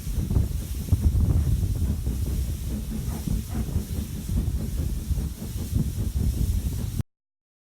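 A steam-hauled train running, heard from on board behind S&DJR 7F 2-8-0 No. 53809: a steady low rumble with a hiss over it. The sound cuts off abruptly about seven seconds in.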